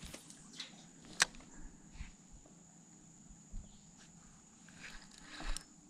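Quiet handling sounds of a spinning rod and reel in a small boat: a few faint clicks and one sharp click about a second in, then a short rustle near the end.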